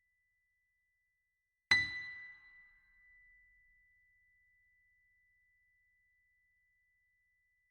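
A bell-like chime struck once about two seconds in, ringing clearly and fading away over about three seconds. Underneath it, a faint steady high tone holds throughout.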